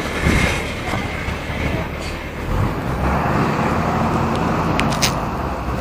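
MWM 6.12 TCAE six-cylinder turbodiesel of a Volksbus 17.210 EOD bus running under way, getting louder about halfway through. A couple of sharp clicks come near the end.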